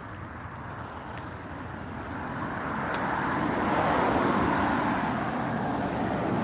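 Rushing tyre and wind noise from a bicycle rolling along a concrete sidewalk, swelling about two seconds in as the bike picks up speed, then easing slightly.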